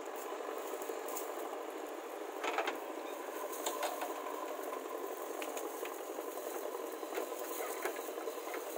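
A machine running steadily, with scattered light clicks and rattles.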